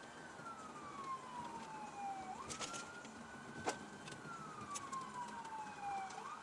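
Police car siren wailing faintly, its pitch sliding slowly down and then sweeping quickly back up, twice, with a few sharp clicks over it.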